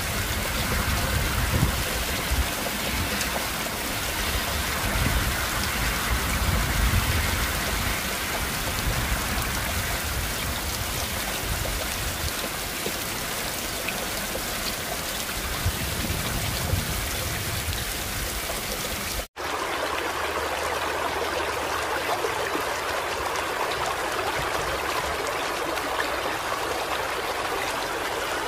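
Heavy rain pouring down, a steady hiss with a deep rumble underneath. About two-thirds of the way in it cuts out for an instant and comes back as a thinner rain hiss without the deep rumble.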